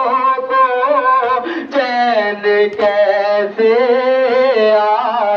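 A voice chanting a nauha, a Shia Muharram lament, in long, wavering held notes.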